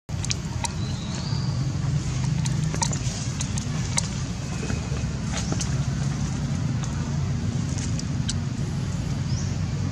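Steady low rumble of motor traffic or an engine, with scattered sharp clicks and a couple of brief high chirps.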